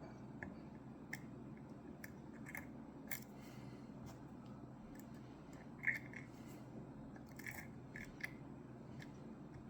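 Lock pick and tension wrench working the pins of a six-pin Ruko 600 pin-tumbler lock: faint, irregular small metallic clicks and scrapes, the loudest about six seconds in and a few more close together near the end.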